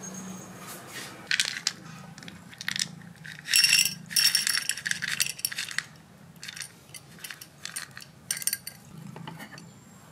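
Dry cat kibble rattling and clattering as it is poured from a plastic scoop onto a ceramic plate, in several bursts of sharp clicks. The pouring is densest and loudest around the middle, and a scatter of lighter clicks follows.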